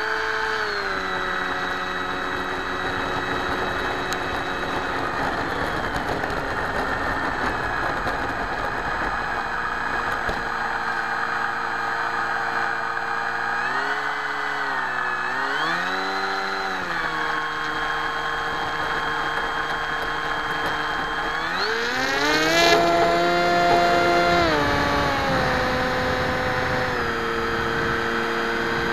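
FX61 flying wing's electric motor and propeller, heard from on board: a steady whine that dips and comes back up about halfway through, then climbs steeply in pitch to its loudest about two-thirds of the way in before settling at a steady higher pitch.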